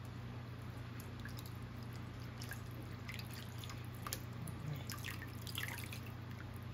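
Water poured in a thin stream from a jug into a large roaster pot of broth, trickling, dripping and lightly splashing, over a low steady hum.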